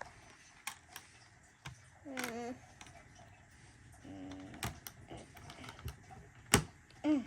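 Small plastic Lego pieces clicking and clattering as they are handled and snapped together, in scattered light clicks with one sharper knock about two-thirds through. A few short children's vocal sounds come in between.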